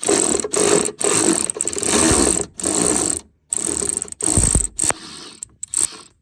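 Ratchet wrench on an extension clicking in a run of quick back-and-forth strokes, backing out the 10 mm bolts of a Toyota Prius inverter coolant pump. The strokes come in bursts of about half a second to a second, with short pauses between them.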